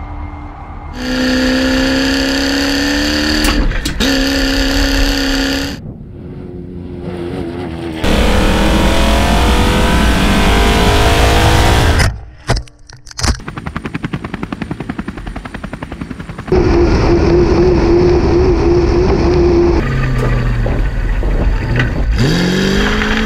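Dakar rally car's engine running hard in several short clips joined by abrupt cuts, its pitch climbing and dropping as it accelerates through the gears. A dense rushing noise of wind and gravel under the engine takes over from about eight seconds in.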